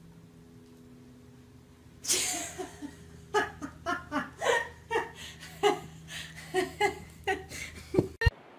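A person laughing hard in a string of short, rhythmic bursts, starting about three seconds in and running until the clip cuts off near the end.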